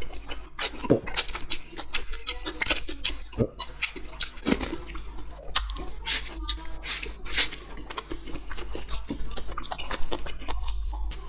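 Close-miked eating sounds: a person chewing, with a quick irregular run of wet mouth clicks and lip smacks.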